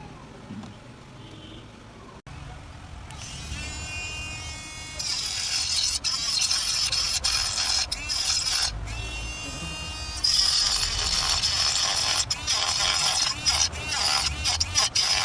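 Mini rotary grinding tool with a small circular blade spinning up with a rising whine, then cutting into the plastic laptop battery case with a loud, hissing grind. It stops, spins up again and cuts on in short passes.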